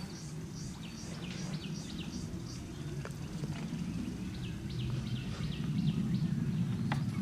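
Small birds chirping in quick runs of short falling notes over a steady low noise that grows louder after about four seconds, with a couple of sharp clicks.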